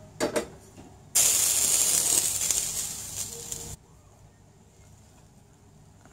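A couple of quick metal clinks from the stainless-steel plate and pot lid, then a loud steady hiss lasting about two and a half seconds that eases slightly and cuts off suddenly: steam escaping from the dum biryani pot as it is opened.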